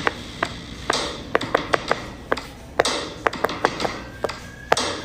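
A fidget toy being clicked and tapped by hand: about fifteen sharp clicks at uneven intervals, some in quick runs of three or four.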